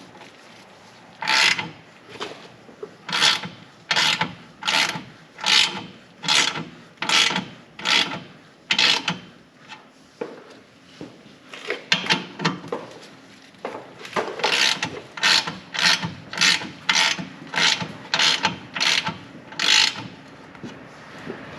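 Hand ratchet wrench worked in repeated short strokes, about one a second, with a pause a little before halfway and quicker strokes later on, tightening exhaust header bolts.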